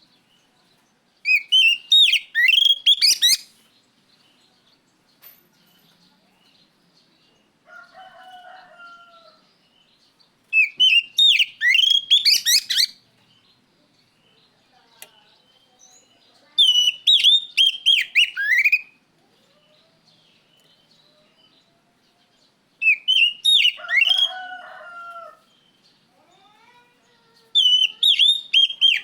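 Oriental magpie-robin (kacer) singing in loud, rapid phrases of sweeping, rising and falling whistles. The song comes in five bursts of two to three seconds, a few seconds apart. A lower, quieter two-note call sounds twice between them.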